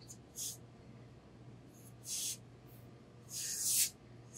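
Tailor's steam iron releasing steam in three short hissing puffs, the last the longest and loudest, as it presses wool suit cloth.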